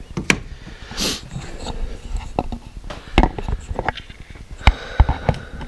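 Hand tools at work on the engine: scattered metal clicks and knocks of a ratchet and socket on a bolt and other parts in the engine bay. The sharper knocks come in the second half.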